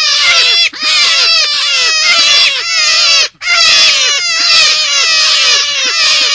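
Lure-call recording of an animal cry labelled as a forest rabbit: rapid runs of short, downward-sliding, shrill notes, several a second, in phrases about three seconds long with brief breaks between them, one break just after three seconds in.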